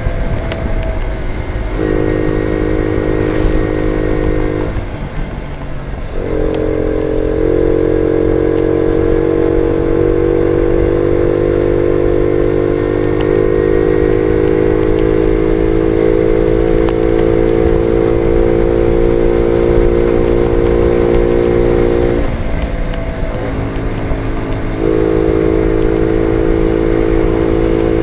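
Jawa Betka 50 moped's small 50 cc two-stroke engine running steadily under way, heard from the handlebars with wind rush on the microphone. Its even engine note drops away briefly about five seconds in and again about three quarters of the way through, then picks back up.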